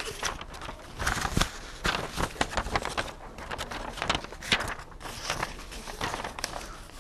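Irregular knocks, taps and rustling with shuffling footsteps.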